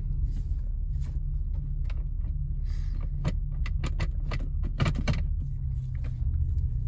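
2003 Acura TL Type S's V6 engine idling steadily in drive, heard from inside the cabin, with the car not moving because the transmission is not engaging. About three seconds in comes a run of sharp clicks and rattles that lasts a couple of seconds.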